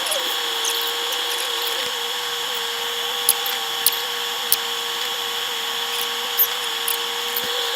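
A small motor whining steadily at one even pitch over a hiss, with a few sharp clicks in the middle.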